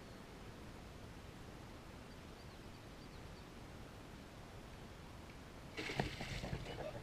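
Quiet outdoor background noise on a pond from a kayak, with a few faint bird chirps, then a short cluster of knocks and rustling near the end.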